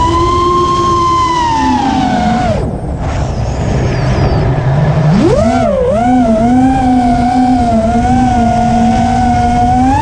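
Brushless motors of a 5-inch FPV freestyle quadcopter (Brother Hobby Returner R4 2206 2300KV) whining under throttle. The pitch holds high, drops away about two and a half seconds in, then climbs back about five seconds in with a few wobbles and holds steady before rising again at the end. A low rushing noise runs underneath.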